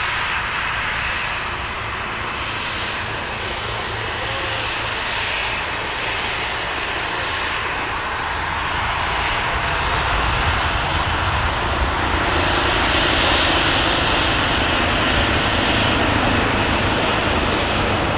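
Boeing 737-700's CFM56-7B turbofan engines running at taxi power as the airliner taxies past, a steady jet noise that grows louder about ten seconds in.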